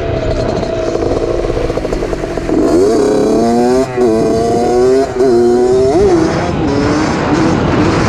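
2003 Suzuki RM60 two-stroke mini dirt bike engine being ridden. Its pitch climbs steeply about two and a half seconds in, holds high with two brief cuts, then drops back and runs lower near the end.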